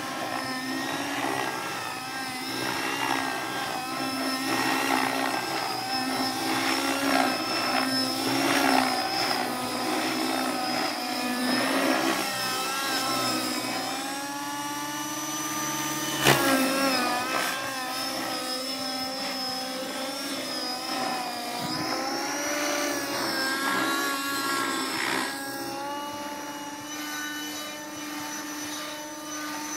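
Align T-Rex 600 radio-controlled helicopter flying overhead, its motor and rotor whine rising and falling in pitch as it manoeuvres. A single sharp click about halfway through.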